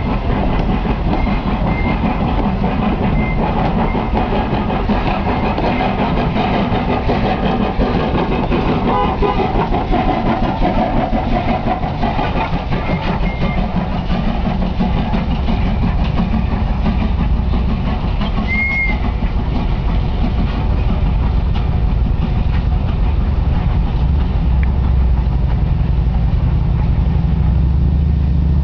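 Train on the Strasburg Rail Road rolling past, a steady loud rumble and clatter of steel wheels on the rails throughout.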